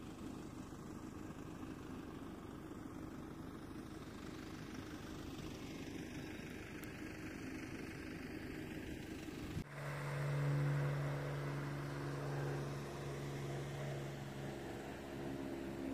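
An engine running steadily. About ten seconds in, the sound cuts to a louder, steady low hum with a clear pitch.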